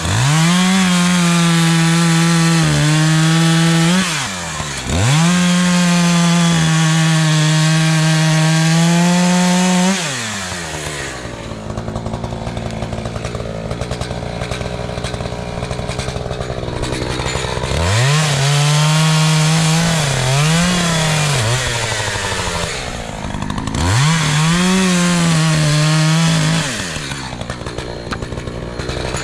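Echo CS-590 Timberwolf two-stroke chainsaw running at high revs, its pitch dropping and climbing back several times. For several seconds in the middle it falls to a lower, quieter run, then revs back up.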